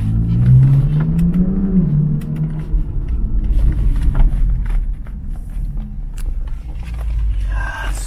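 BMW F10 5 Series heard from inside the cabin while driving. The engine note rises for about two seconds and then drops at an upshift, followed by a steady engine and road rumble with a few light clicks.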